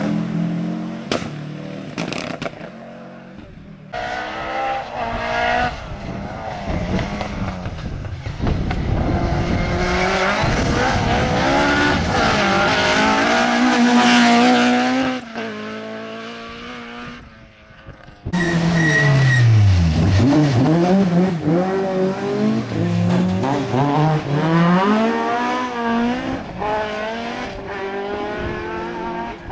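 Rally cars racing past on a tarmac stage one after another, engines revving hard, their pitch rising and falling through gear changes as each car comes by, with abrupt cuts between cars.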